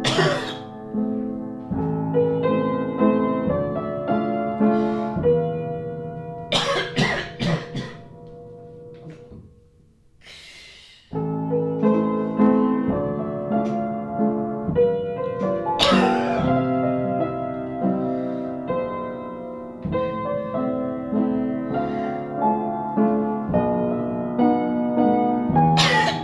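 Solo piano playing, broken into by loud coughs: a quick run of several coughs about a quarter of the way in, then single coughs later on. Near the middle the piano briefly falls almost silent before starting again.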